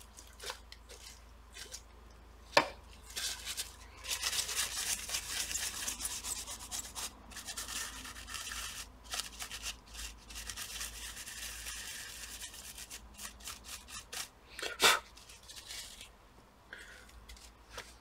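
Rapid scrubbing and rubbing as old thermal paste is cleaned off a laptop's CPU and GPU with alcohol. It runs for about ten seconds, with a sharp tap before it starts and another, louder one near the end.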